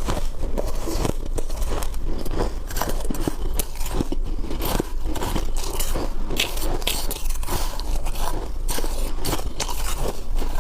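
Ice being bitten and chewed close to the microphone: a dense, unbroken run of sharp crunches and cracks.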